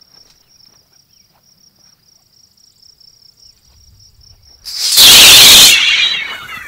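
A coiled bandsaw blade tossed out and springing open: a sudden, very loud metallic crash about five seconds in, lasting about a second, then ringing tones that die away. Insects chirp steadily throughout.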